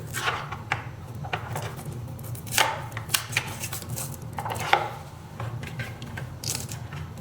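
Irregular knocks, taps and scrapes of hands and tools working a glued-in controller loose inside an electric scooter's battery compartment, over a steady low hum.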